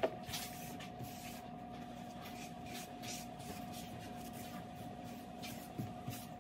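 Paper towel wiped across a kitchen countertop in short, hissing swishes, several over a few seconds, over a faint steady hum.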